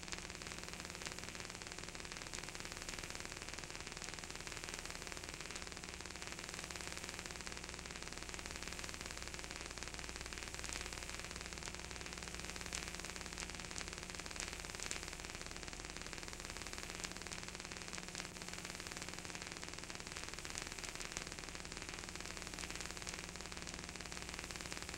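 Steady hiss of analog tape noise with a faint low electrical hum and scattered faint clicks; no music or voices.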